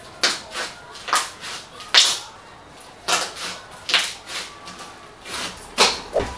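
Large batch of white glue slime squelching and popping as a gloved hand presses and squeezes into it. About a dozen sharp, wet pops and crackles come at roughly two a second.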